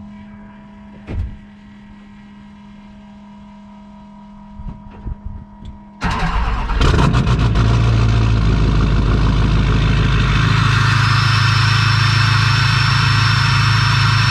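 A low steady hum with a few clicks, then about six seconds in an engine or motor starts suddenly and runs loud and steady.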